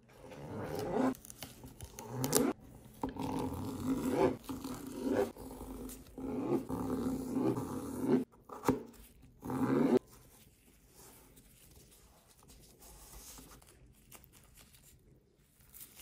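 Knife slicing lengthwise through a cucumber on a cutting board: a run of loud, creaking strokes for about ten seconds, then much quieter handling.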